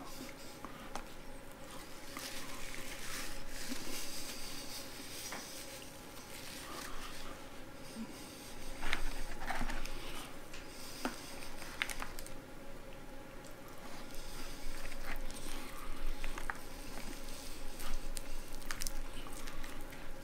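Close-miked chewing of fried chicken, with wet mouth smacks and clicks, and fingers pulling apart and handling the chicken pieces. Scattered short crackles over a faint steady hum.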